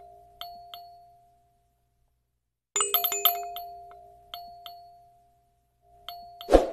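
Chiming animation sound effect: a quick run of clicks with ringing bell-like tones that fade over about a second, then two lighter pings; the pattern repeats about three seconds in. Near the end a short swelling sound ends in a loud hit.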